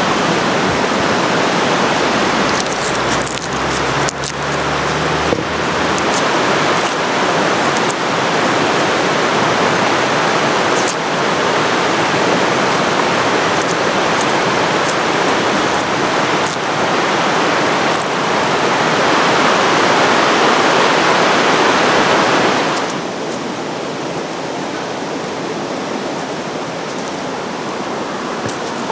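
Steady rushing of running water, like a mountain stream, with a few faint clicks over it; it drops a step quieter about three quarters of the way through.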